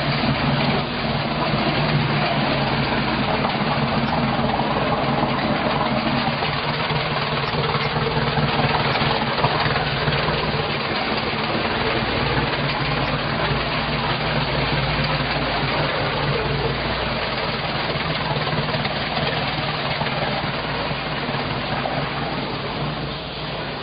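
Volvo Penta 3.0 GL four-cylinder sterndrive engine idling steadily.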